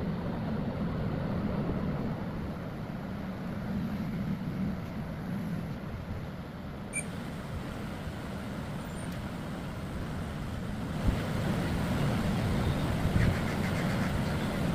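Steady low rumbling noise with no clear pattern, a little louder and brighter in the last few seconds.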